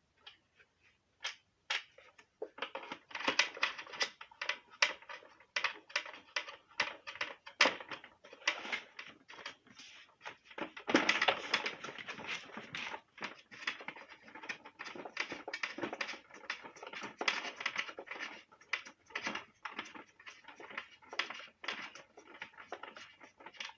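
Screws being driven into the plastic housing of an LG vacuum cleaner, with irregular clicks, scrapes and rattles of the plastic covers being handled and seated.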